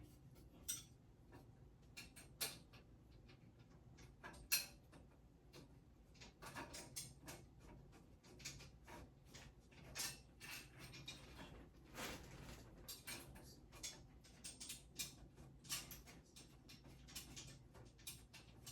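Faint, irregular clicks and taps of dresser parts and hardware being handled during flat-pack assembly, with a few sharper knocks.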